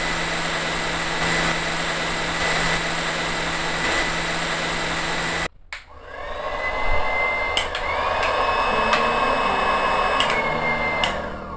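Electric hot-air heat gun running: a steady rush of air from its fan with a thin whine. The sound cuts off sharply about halfway through, then the gun starts again with a rising whine and runs steadily, with a few sharp clicks.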